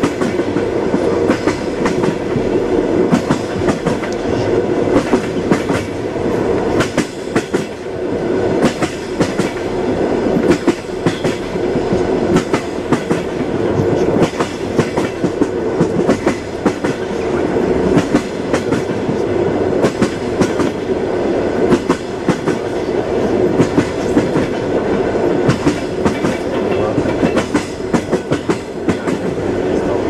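Train wheels clattering over the rails: a steady running rumble with frequent clacks and knocks as a moving train rolls on.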